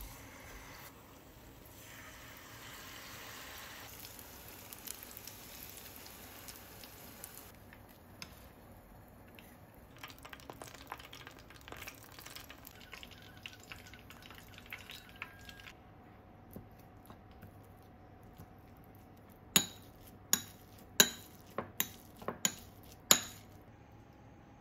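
Oil in a frying pan sizzling softly with scattered small crackles as a starch-coated soft-boiled egg and shishito peppers fry. Near the end come about seven sharp clicking taps with a short ring, the loudest sounds here.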